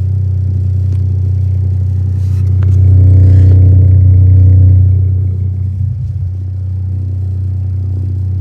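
Deep, sustained bass played through an iLive 2.1 speaker system's subwoofer during a bass test: a loud low note that swells louder about three seconds in and eases back about two seconds later.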